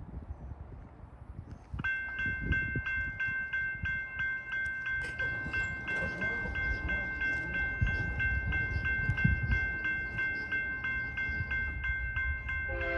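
Railroad crossing signal bell starts ringing about two seconds in and keeps ringing at about three strokes a second as the crossing activates. Just before the end, the approaching freight's locomotive horn begins to sound.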